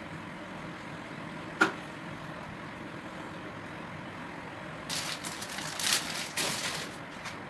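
Plastic table-fan parts and packaging being handled during assembly: a single sharp click, then a few seconds of rustling and clattering near the end, over a steady background hum.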